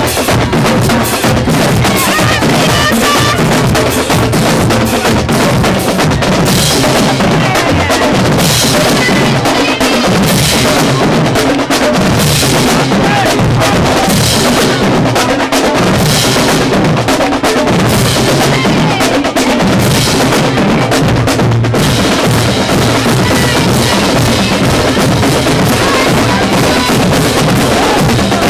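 HBCU marching band drumline playing a loud, continuous cadence on snare drums, tenor drums, bass drums and cymbals.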